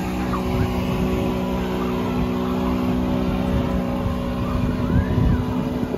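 Motorboat engine running at a steady pitch, over a rough low rumble of wind and water.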